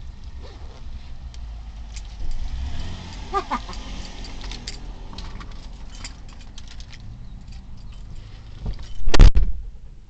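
Scattered clicks and rustling inside a parked car, a brief falling squeal about three seconds in, and one loud thump near the end, the loudest sound.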